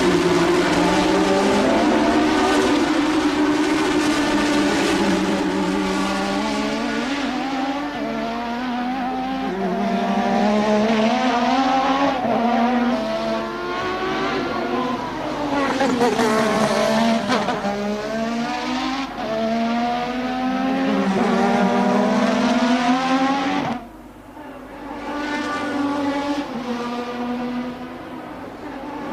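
Formula One car engine at racing speed, its pitch climbing through each gear and dropping at the shifts, over and over. The engine note cuts off suddenly about three quarters of the way through, then builds again.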